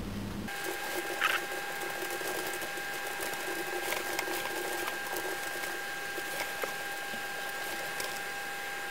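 Toaster oven running with both heating elements on, a steady high whine with scattered light ticks and crackles as it heats up.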